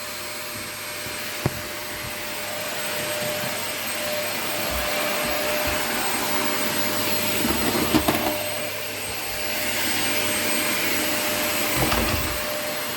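Vacuum cleaner running steadily, a rushing hiss with a thin steady whine. A sharp click comes about a second and a half in, and bumps and knocks follow later, the loudest about eight seconds in and more near the end.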